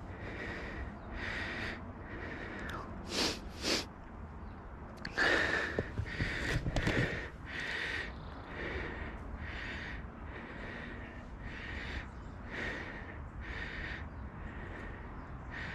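A person panting hard close to the microphone, one breath about every 0.8 seconds, as after a hard mountain-bike effort. Two short sharp noises come around three seconds in, and a louder, noisier stretch runs from about five to seven seconds.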